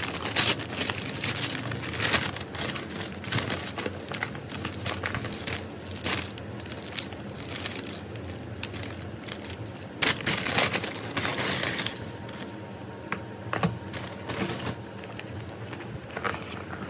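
A brown paper takeaway bag and its paper wrapping crinkling and tearing as they are opened by hand, in irregular rustles and crackles. The crackling is busiest near the start and again about ten seconds in.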